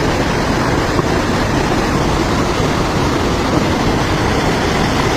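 Steady roar of rushing floodwater.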